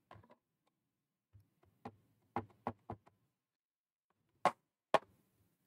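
Light taps and clicks of stamping tools being handled on a Stamparatus stamping platform: a quick run of four soft taps, then two sharper clicks about half a second apart near the end.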